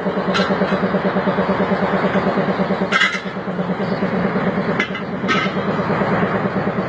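A motor running steadily with a fast, even pulse, and a few sharp metallic clinks, one about half a second in, one about three seconds in and two near five seconds.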